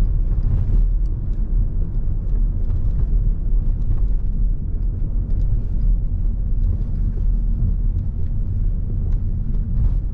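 Steady low rumble of a car driving, road and engine noise, with a few faint light ticks over it.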